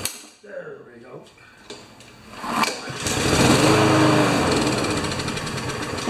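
Honda GCV190 lawn mower engine pull-started on a shot of carburetor spray: a sharp pull about two and a half seconds in, then the engine fires and runs loudly for a few seconds, easing off a little near the end. Catching on the spray is a good sign for this engine that would not start.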